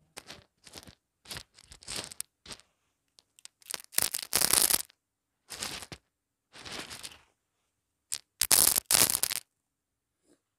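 Small dry crunchy pieces crushed by hand on carpet: a series of separate crunches, loudest about four seconds in and again near the end.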